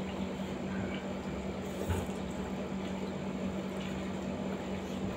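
Air conditioner running with a steady hum, and a single small click about two seconds in.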